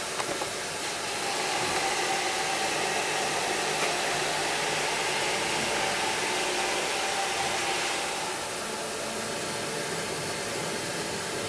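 Gas torch burner hissing steadily, its blue flame played against a polymer conveyor roller in a flame test. The hiss grows a little louder about a second in and eases slightly about eight seconds in.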